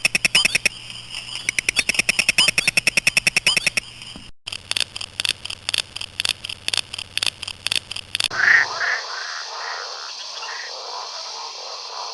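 Frog calls: a fast pulsed trill of about ten clicks a second, then after a sudden cut a slower series of about three or four pulses a second. About eight seconds in, a different recording takes over: a steady chorus with scattered short chirps.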